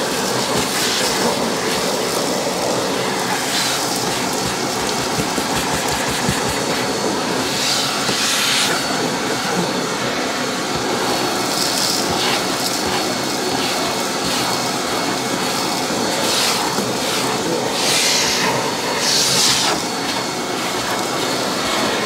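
JPT KVC60 twin-motor industrial wet-and-dry vacuum cleaner running on one of its two motors, a steady rush of suction as its round brush nozzle is scrubbed over car floor carpet, picking up dirt and grit. Brief louder hissing swells come several times.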